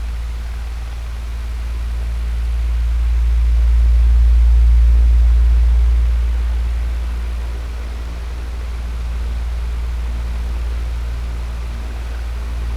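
Electric fan running steadily: a low, even whooshing hum that slowly swells and eases in loudness.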